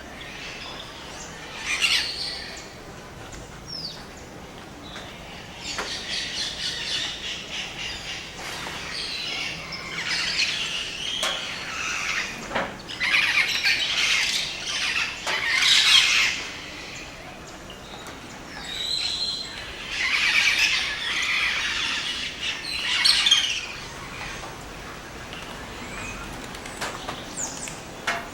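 Dawn chorus of tropical rainforest birds: many calls overlapping, swelling in waves that are loudest about halfway through and again a little after twenty seconds.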